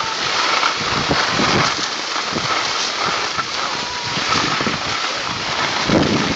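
Skis scraping and sliding over hard-packed snow with wind buffeting the microphone, a steady rushing noise with irregular low gusts that grow louder near the end.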